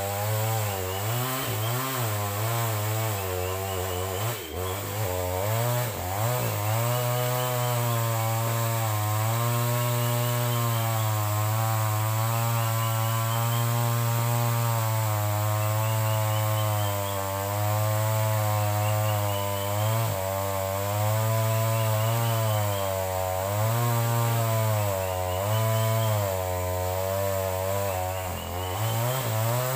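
Chainsaw engine running steadily, its pitch wavering up and down as the revs change.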